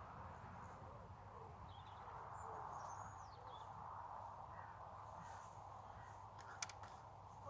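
Faint outdoor ambience: a steady low hiss with a few faint bird calls, one a thin high call sliding downward, and a couple of sharp clicks near the end.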